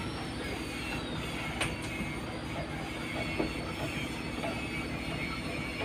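A boat engine running steadily, a low drone with a faint high whine that slides down in pitch during the first second or so. Two brief knocks come about one and a half and three and a half seconds in.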